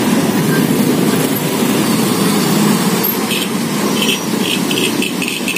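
Busy street traffic: motorbike and car engines idling and moving in a steady rumbling din. A bit past halfway, a rapid high-pitched dinging joins in, about three strokes a second.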